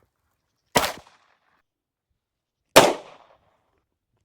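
Gunshots fired one at a time, about two seconds apart: two sharp cracks, each with a short fading tail, and a third just at the end.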